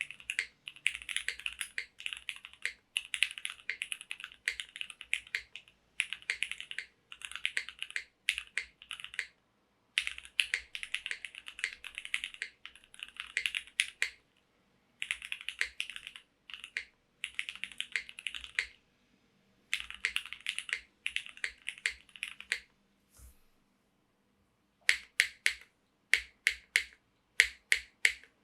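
Mechanical keyboard being typed on in quick runs with short pauses: a Krush65 65% board with a polycarbonate case, polypropylene plate, Cherry MX Hyperglide Black linear switches and GMK keycaps. Near the end come a few single, louder key strokes.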